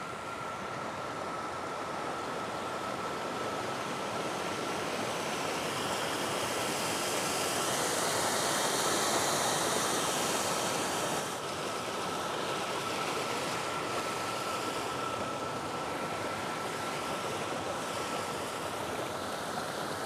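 Rushing, splashing river water pouring over flat rock ledges and through a concrete sluice opening in a small waterfall. It swells louder toward the middle and drops off abruptly about eleven seconds in. A faint steady high tone runs underneath.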